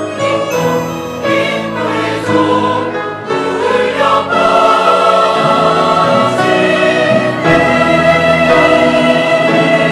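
Church choir singing an anthem, with long held chords from about halfway through.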